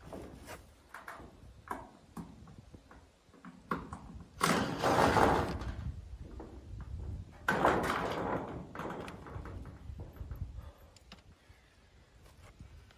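Cordless drill working into a corrugated-iron wall, running twice for about a second and a half each, about four and a half and seven and a half seconds in, with the sheet metal rattling. Light knocks and footsteps come before and after.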